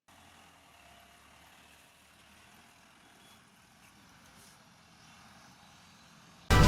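Faint, steady background noise with a low hum. Loud music cuts in suddenly right at the end.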